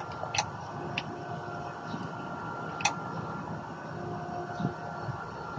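A few sharp metallic clicks and a softer knock as a pump-action shotgun is handled and wiped down with a rag, over a steady mechanical hum.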